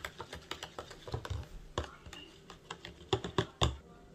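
Metal spoon stirring a yeast mixture in a plastic bowl: quick, irregular clicking of the spoon against the bowl, with a few louder knocks about three seconds in.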